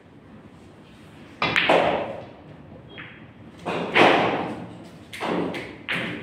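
Pool balls clacking on a pool table: a sharp strike about one and a half seconds in as the cue hits the cue ball and the balls collide, then further knocks as the balls hit each other, the cushions and a pocket.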